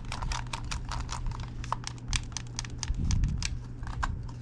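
Buttons of a freshly reassembled controller pressed one after another to check that each one clicks: a quick, irregular run of small plastic clicks.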